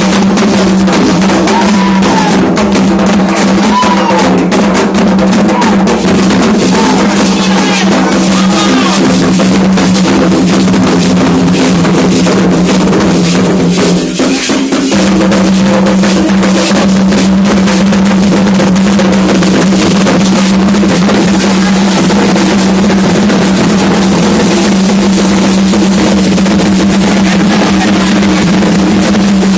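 Candomblé ritual drumming on atabaque hand drums, loud and continuous, with voices over it. It dips briefly about halfway through.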